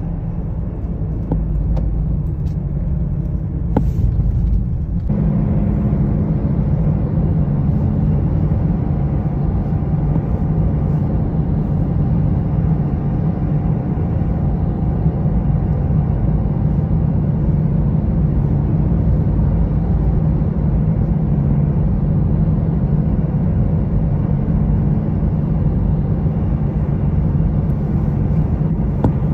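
Road noise of a moving car heard from inside: a steady low rumble of tyres and engine, which gets louder and fuller about five seconds in.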